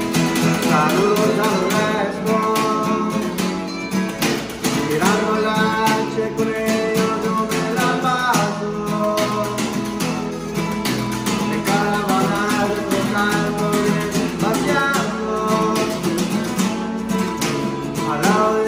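Acoustic guitar trio playing: picked melodic runs over strummed chords and a bass line, with a voice starting to sing near the end.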